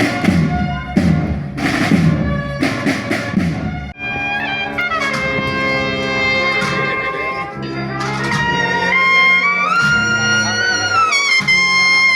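Music: a drum beat, then about four seconds in an abrupt change to a brass melody of long held notes, likely trumpet-led. The melody glides up and ends on a wavering held note.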